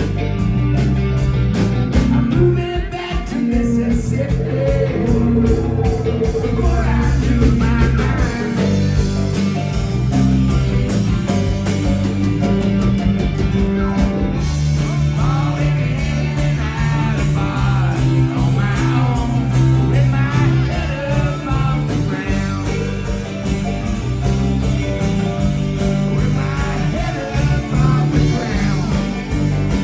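Live rock band playing: guitar, bass and drums, with a singing voice over them from a few seconds in.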